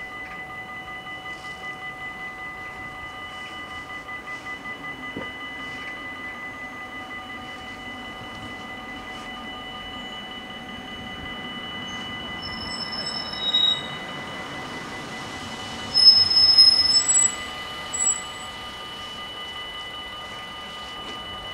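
Level-crossing warning bells ringing steadily while a train runs over the crossing. The train's wheels give several short, loud, high-pitched squeals a little past the middle.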